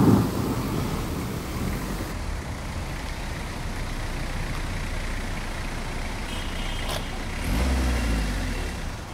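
A rumble of thunder fades at the start. Then a small hatchback car, a Maruti Suzuki Zen, runs steadily as it drives up and pulls in to stop, with its engine swelling louder for about a second near the end before it settles.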